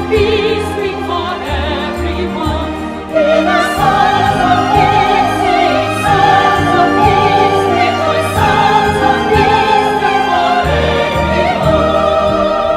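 Music: a choir and operatic voices singing held notes with strong vibrato over an orchestral backing, swelling louder about three seconds in.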